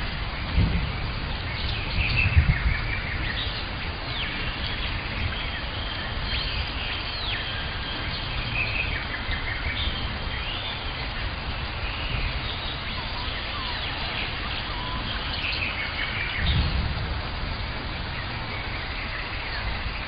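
Rainforest ambience: birds chirping and whistling over a steady hiss, with three brief low rumbles, the loudest about two seconds in.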